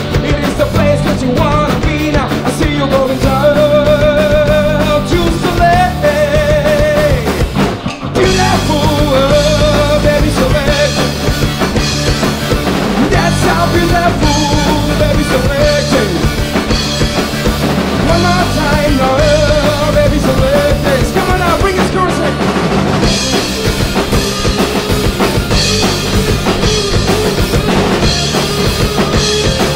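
Rock band playing: drum kit, electric bass and distorted electric guitars, with a wavering melody line on top. About eight seconds in the band stops briefly, then comes back in together.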